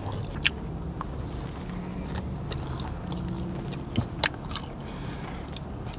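A person chewing a mouthful of burger close to a clip-on microphone, with a few small, sharp mouth clicks now and then.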